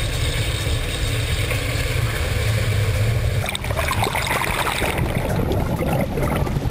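Water rushing into the cabin of a sinking car, starting suddenly with a loud, low rumbling rush. About three and a half seconds in, the in-car camera goes under and the sound turns to churning, bubbling underwater turbulence.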